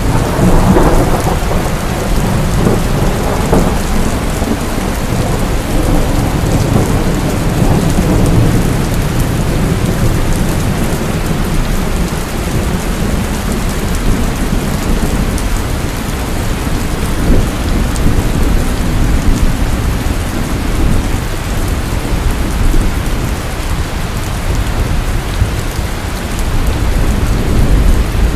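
Heavy rain falling steadily with thunder rumbling low underneath. The rumble swells in the first few seconds, eases, and builds again near the end.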